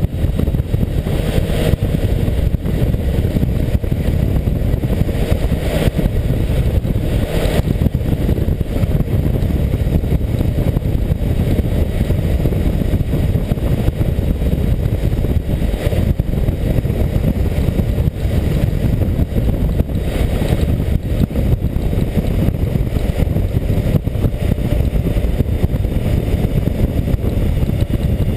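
Wind buffeting the microphone of a camera mounted on the tank cover of a BMW K1600GTL motorcycle under way, a steady low rumble, with the bike's inline-six engine running beneath it.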